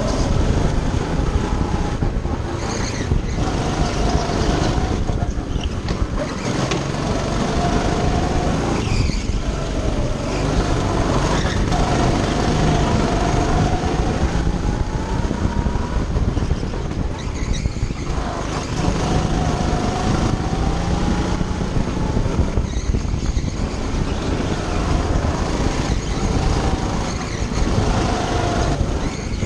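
Go-kart engine running under load, heard from the driver's seat: its pitch rises on the straights and drops each time it slows for a corner, several times over.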